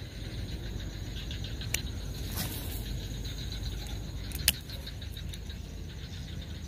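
Baitcasting reel being cast and cranked: faint rapid ticking from the reel with a few sharp clicks, the loudest about four and a half seconds in, over a steady low rumble.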